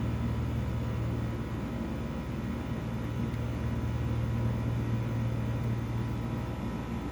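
A steady low hum with a few faint steady higher tones, unchanging throughout.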